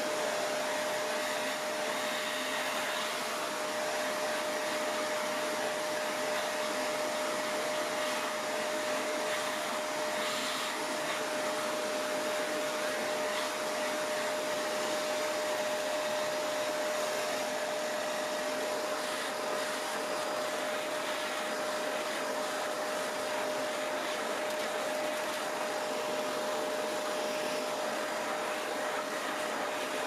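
Shark Rotator Professional Lift-Away (NV501) vacuum running steadily with its dusting brush attachment on carpet pile. The steady rush of suction carries a constant whine from the motor.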